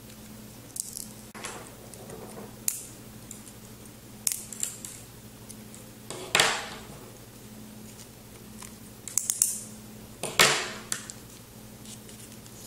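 A small screwdriver prying apart a Peltier thermoelectric module: scattered clicks and scrapes of metal on the ceramic plate, and two louder sharp cracks about six and ten seconds in as pieces break away.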